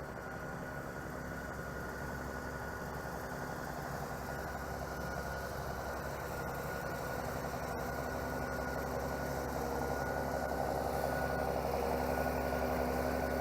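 Tractor engine running steadily, slowly getting louder as it comes closer or works harder.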